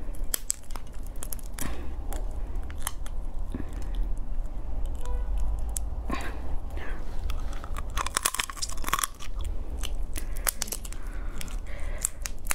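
Prawn shell crackling and snapping as it is peeled off the body by hand, in many small sharp clicks, with a denser crackle about two thirds of the way through.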